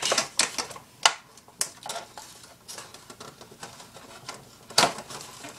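Hands working at an action figure's cardboard box and plastic packaging: scattered clicks and crinkles, with one louder click near the end.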